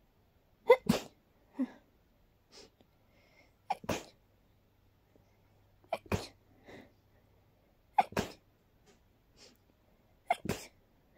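A person in a sneezing fit brought on by dust, sneezing about five times roughly every two seconds. Each sneeze has a short drawn-in 'ah' before the burst, and there are quieter breaths between the sneezes.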